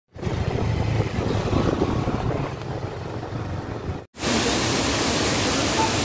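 A steady rushing noise with a low rumble, cut off about four seconds in by a louder, brighter, even rush of falling water from a waterfall.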